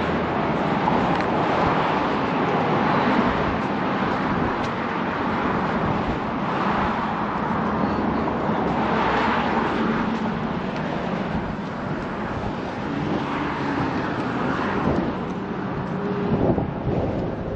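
Steady road-traffic noise with wind, a continuous rush with a faint engine hum under it.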